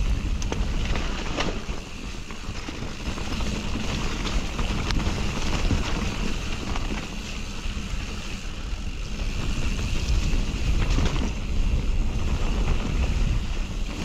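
Wind rushing over the action camera's microphone and knobby tyres rolling over a dirt forest trail as a Nukeproof Mega enduro mountain bike descends at speed, with scattered short clicks and knocks from the bike over bumps.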